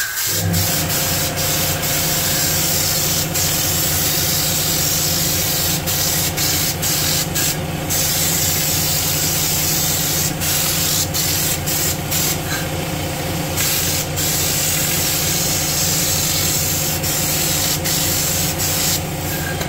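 Air-fed underbody spray gun spraying bed liner from a can in a steady loud hiss, the hiss breaking off briefly now and then as the trigger is let go, over a steady low hum.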